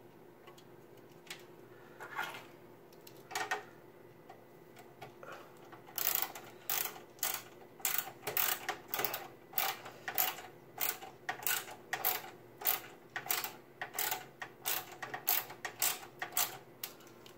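Screwdriver tightening the graphics card's bracket screws into the PC case: a few scattered clicks, then a steady run of clicks, about two a second.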